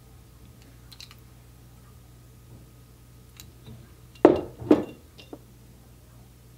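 Seasoning emptied from a stainless steel ladle into a glass mixing bowl of sauce: two short splashes about half a second apart, with a few faint clinks around them.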